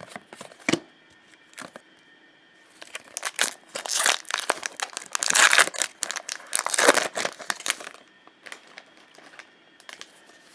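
Foil wrapper of a Return to Ravnica booster pack crinkling as it is torn open, a dense crackle from about three seconds in to about eight seconds. After that there is fainter rustling as the cards are handled.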